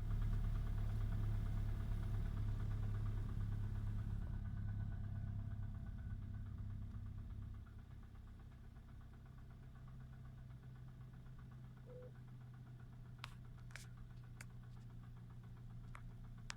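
2009 VW 1.4 TSI CAVD twincharged four-cylinder engine running on a cold start with a knocking noise that persists despite a new timing chain set and fresh 5W-40 oil. The engine sound drops to a quieter, lower level about seven seconds in.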